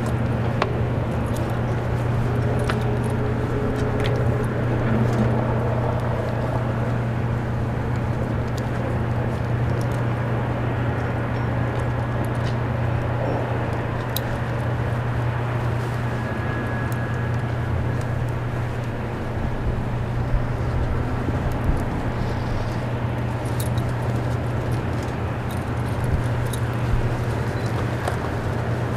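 A steady low mechanical hum under outdoor background noise, with a few faint clicks and clinks scattered through it.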